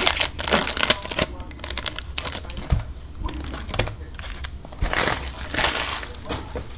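Foil Topps Chrome trading-card pack wrappers crinkling and crackling as they are handled, in an irregular run of short crackles.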